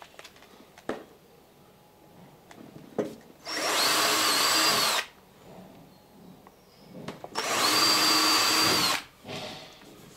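Cordless drill boring nail holes through the overlapping lap of wooden clinker planks for the copper boat nails: two runs of about a second and a half each, the motor whine rising as it starts and dropping as it stops.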